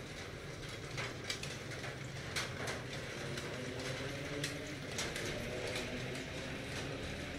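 Aquarium aeration running: a steady low hum with irregular clicking and ticking over it, from the air pump and the bubbles from its air line.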